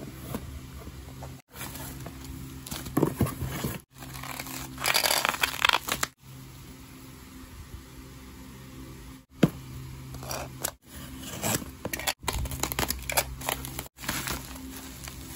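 Plastic packaging being unwrapped by hand: bubble wrap and shrink wrap crinkling and rustling in short irregular bursts, the loudest about five seconds in, with more near the end.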